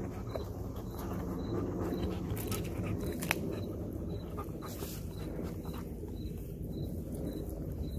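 Belgian Malinois chewing and tearing at a raw whole chicken: irregular wet crunches and clicks, with the sharpest crack about three seconds in.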